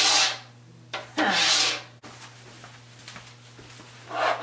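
Plastic discs of a Giffin Grip on a pottery wheel head rubbing as the top disc is turned by hand: three scraping swishes, the longest about a second in and another near the end.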